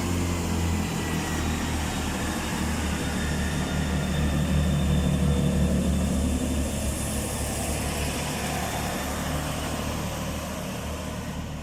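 Two coupled Class 165 diesel multiple units pulling away, their diesel engines running under power with a steady low drone. The drone swells about five seconds in, then fades toward the end as the train draws off.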